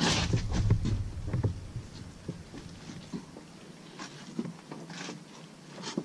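Knocks and thumps on a boat floor as a hooked flathead catfish is handled there, thickest in the first second and a half, then scattered single knocks.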